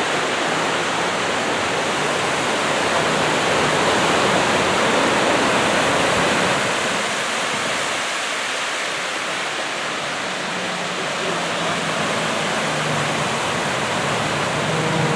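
Waves breaking and washing up a sandy beach: a steady rush of surf that swells about three seconds in and eases off after about seven seconds.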